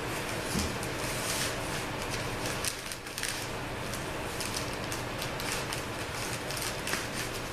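Repeated short rustles and light clicks of transmission parts being handled on a workbench, over a steady low hum.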